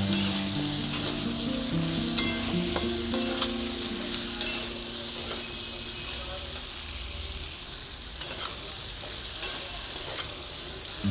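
Chunks of potato, pumpkin and radish frying in oil in a kadai with a steady sizzle, stirred, with clicks and scrapes of the stirring utensil against the pan every second or two.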